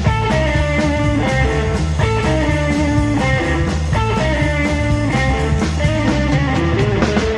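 Live psychobilly band playing: an electric guitar picks a lead line of separate notes over a steady, pulsing bass.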